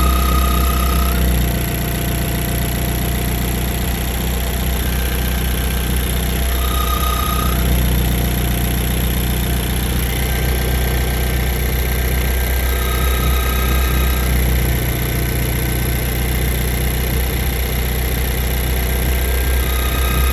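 Car engine idling steadily, with a thin high whistle that comes and goes about four times: the noise that appeared after an oil catch can was fitted.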